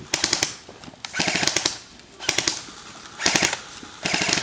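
Airsoft guns firing in short full-auto bursts: five rapid rattling bursts of about half a second each, roughly one every second.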